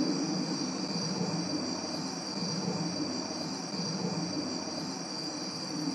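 Crickets trilling, a steady high-pitched chorus, over a low background rumble.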